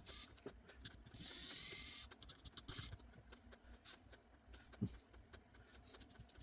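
Small screwdriver removing tiny phone screws: a short motorised whir of about a second, with light clicks and taps of the tool and screws around it.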